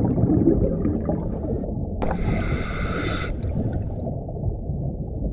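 Underwater sound of a scuba diver breathing: a steady low rumble throughout, with one hissing breath through the regulator starting about two seconds in and lasting just over a second.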